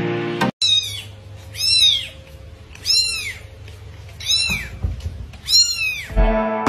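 A cat meowing repeatedly: about five high-pitched calls, each rising then falling, roughly one a second. Background music plays briefly at the start and comes back just before the end.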